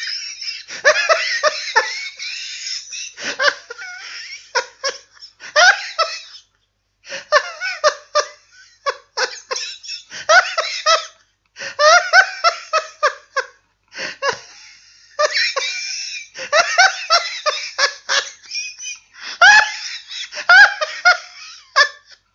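Hearty laughter, coming in repeated bursts of belly laughs and giggles with short breaks between them.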